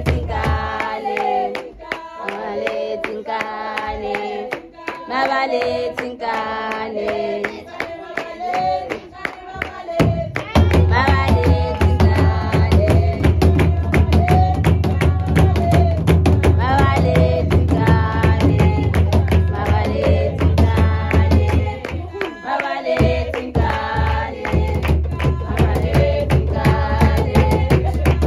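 Background music: a song with sung vocals over drums and percussion. The heavy bass beat comes in about a third of the way through and drops out again briefly near the end.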